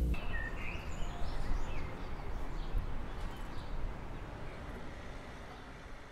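Outdoor ambience: a steady background hiss with a few short bird chirps in the first couple of seconds, the whole fading out gradually.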